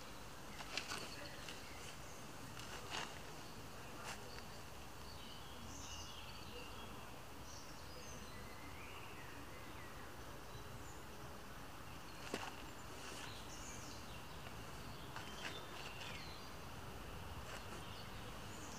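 Outdoor woodland ambience: a steady background hiss with scattered faint bird chirps. A few short taps stand out, about a second in, at three seconds and near twelve seconds.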